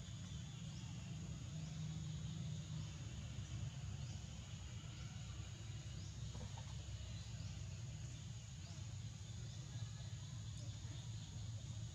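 Forest insects keep up a steady high drone, with a short rising chirp repeating about once a second, over a constant low rumble.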